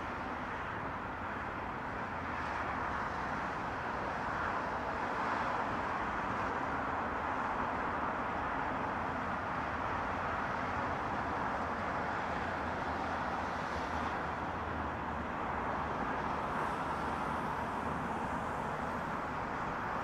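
Distant traffic on a multi-lane highway: a steady, continuous rush of tyres and engines with no single vehicle standing out.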